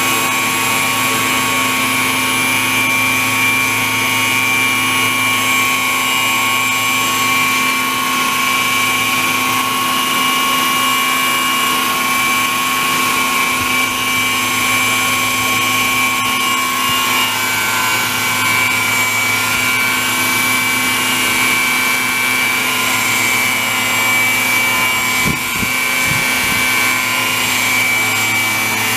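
Radio-controlled EC135 scale model helicopter running in a low hover, its motor and rotors making a steady loud whine. The pitch of its high notes shifts slightly about halfway through. A few brief low thumps come near the end.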